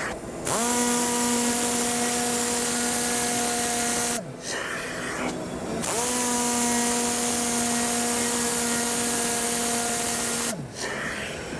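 Tornador ZV-240 Velocity-Vac Dry vacuum running with a steady whine over rushing air. It winds up just after the start, winds down and drops out about four seconds in, winds up again a couple of seconds later, and winds down again near the end.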